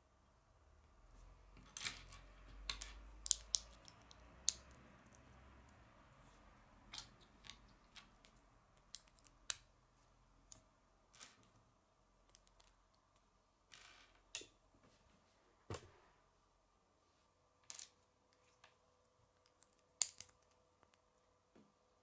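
Small plastic Lego bricks being handled and pressed together by hand: light, sharp clicks and snaps at irregular intervals, the loudest about two, three and a half, and twenty seconds in.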